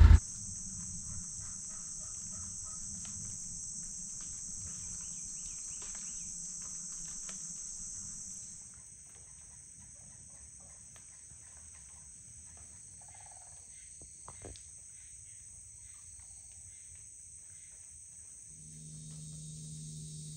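A steady, high-pitched chorus of insects that drops in level a little past eight seconds in.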